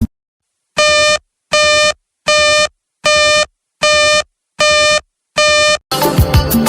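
WeatherSTAR warning alert tone: seven identical buzzy electronic beeps, one about every three-quarters of a second, signalling a severe weather warning. Background music starts near the end.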